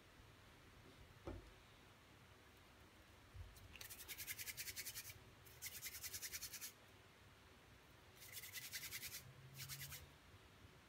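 A plastic modelling-dough tool working Play-Doh: four bursts of fast, even clicking, each about a second long or less, after a couple of soft knocks on the table.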